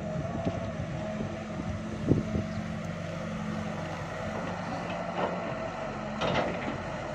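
Sumitomo S265 hydraulic excavator's diesel engine running steadily under load with a steady hydraulic whine as the boom lifts and the machine swings. A few short knocks come through, about two seconds in and again near the end.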